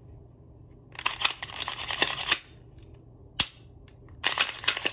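Metal clicks and scraping from a PSA Dagger, a Glock 19-style pistol, being handled, likely its slide being worked or put back on: a rattling run of clicks lasting over a second, one sharp single click in the middle, then another quick run of clicks near the end.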